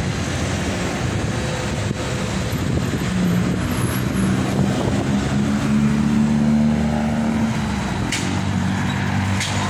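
Street traffic: a steady rush of passing cars and engines. One vehicle's engine hum grows louder from about three seconds in and fades near the end.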